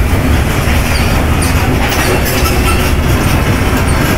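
Goods train of loaded open coal wagons rolling past, a steady loud rumble of steel wheels on the rails.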